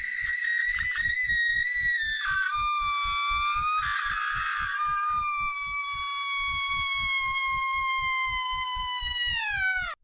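A woman's long, high-pitched scream over a fast, throbbing heartbeat-like pulse of about four beats a second. The scream drops in pitch about two seconds in, holds, then slides down near the end and cuts off abruptly.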